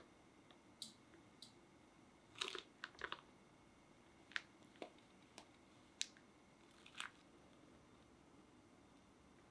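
Short, scattered crinkles and ticks of a disposable plastic piping bag being squeezed and handled as cake batter is piped into a parchment-lined tin. They are densest about two and a half to three seconds in and stop after about seven seconds.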